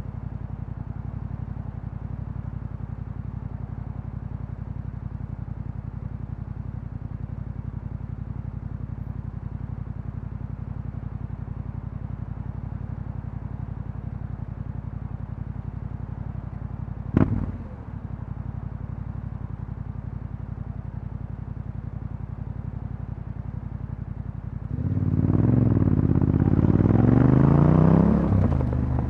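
Yamaha Ténéré 700 parallel-twin engine with an Akrapovič exhaust running at a steady low idle, with one short sharp sound about two-thirds of the way through. Near the end it revs up and the bike pulls away, its pitch rising and falling through the gears before easing off.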